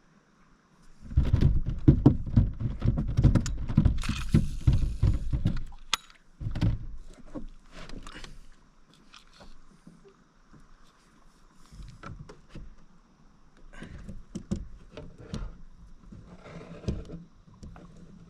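Thumps, knocks and rattling from handling in a kayak: a dense run of thumps for about five seconds starting a second in, then scattered light clicks and knocks.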